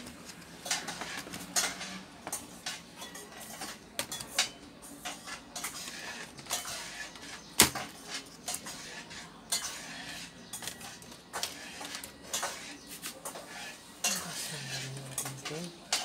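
Irregular clicks, knocks and rattles of the plastic and metal parts of a Lenovo G450 laptop as its display assembly and hinges are handled and lifted off the base, with one sharp knock about halfway through.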